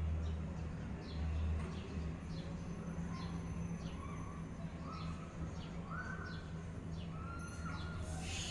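Birds chirping: short, high, falling chirps repeated about once a second, with a few lower calls in the second half, over a steady low hum.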